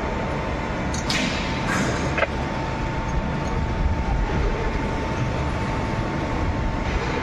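Steady workshop machinery rumble with a constant high whine, and a few sharp metallic clinks about one and two seconds in as hand tools work on a pump casing.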